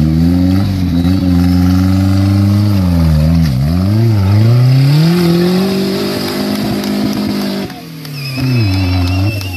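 Custom-built tube-frame 4x4 buggy's engine revving hard under load as it claws up a steep dirt bank. The pitch dips twice, then climbs and holds high, and the engine falls off about three-quarters of the way through before one short rev near the end.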